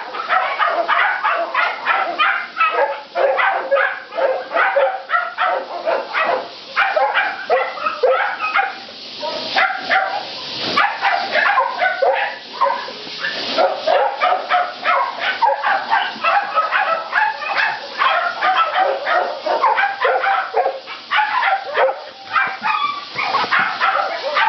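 Many shelter dogs in kennels barking and yipping at once, a dense chorus of overlapping barks with no break.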